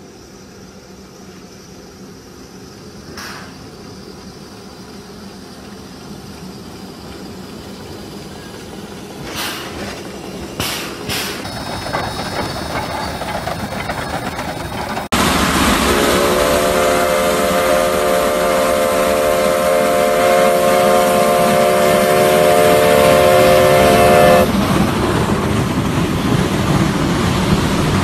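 Geared steam logging locomotive running and drawing closer, growing steadily louder, with a few sharp clanks. After an abrupt jump in loudness about halfway through, a steam whistle sounds a steady chord of several notes for about eight seconds, and the train keeps running after it.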